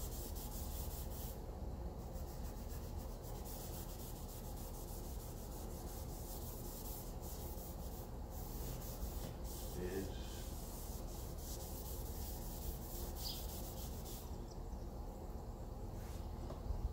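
Masking tape being pulled off the roll and pressed down around the edge of a car headlight. It makes a papery, rubbing hiss that comes and goes in stretches of a few seconds.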